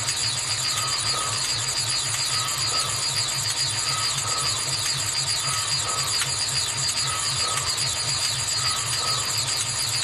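Sci-fi 'alien machine' sound effect running steadily: a fast-pulsing low hum under two steady high-pitched whines, with a short warbling blip that repeats about every second and a half.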